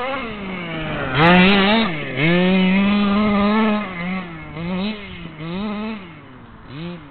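KM 29cc two-stroke petrol engine of a 1/5-scale 5T RC truck revving: two held full-throttle runs from about a second in to about four seconds, the loudest part, then short throttle blips roughly once a second.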